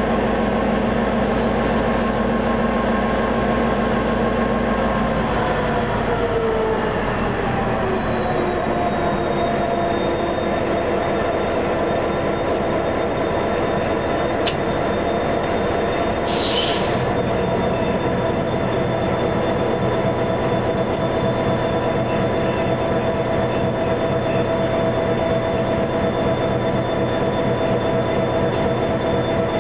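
EMD SD50 diesel locomotive running with its train, a steady mechanical whine over the rumble; the whine falls in pitch for a few seconds about five seconds in, then holds steady. A brief hiss comes about sixteen seconds in.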